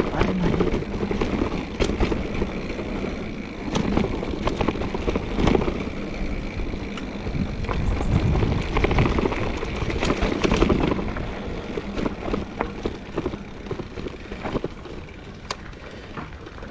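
Trek Fuel EX 5 full-suspension mountain bike riding over a rough dirt trail: steady tyre and wind noise on the microphone, with frequent clacks and rattles as the bike takes bumps. The noise is loudest in the middle and eases near the end.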